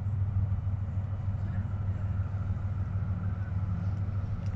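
Diesel-electric locomotive (Pakistan Railways RGE-20) running with a steady low rumble as it pulls a passenger train up the grade out of a tunnel.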